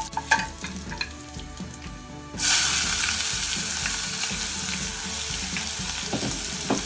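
Hot oil in a small non-stick saucepan crackles lightly with curry leaves while a wooden spoon knocks against the pan. About two and a half seconds in, chopped red onion is tipped in and the oil breaks into a loud, steady sizzle as it is stirred.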